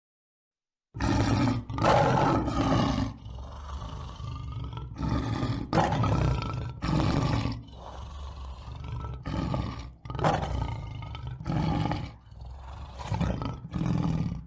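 Lion roaring: a long run of repeated deep roars and grunts, starting about a second in, one call after another with short breaths between.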